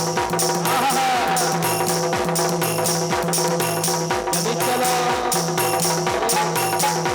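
Instrumental passage of a Bundeli rai folk song: a fast, steady drum beat over sustained keyboard-like tones and a stepping bass line.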